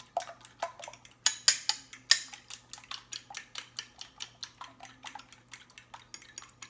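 A metal fork beating eggs with half and half in a ceramic bowl: quick, uneven clicks of the fork against the bowl, a few a second.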